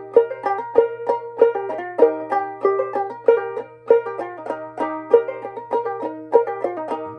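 Ukulele played clawhammer style: an instrumental passage of plucked notes in a steady, bouncing rhythm after the last sung line.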